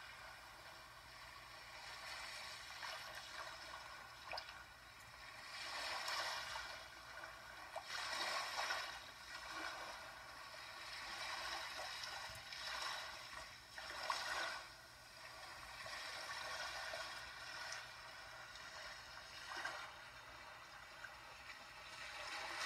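Moving water, a steady wash that swells and ebbs in irregular surges every few seconds, like water lapping or running.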